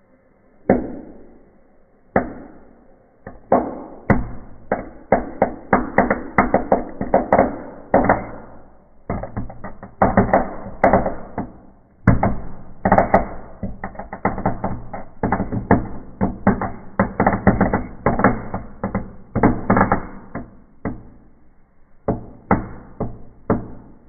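Wood fire in a fireplace crackling and popping hard: dense runs of sharp cracks one after another, with a short break about nine seconds in, thinning out near the end.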